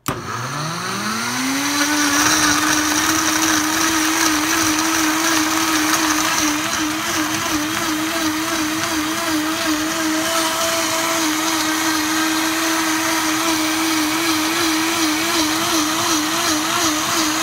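Vitamix blender motor starting up, its pitch rising over the first second or two, then running at high speed as it purees spinach, ice and water into a smooth green drink. It begins to wind down right at the end.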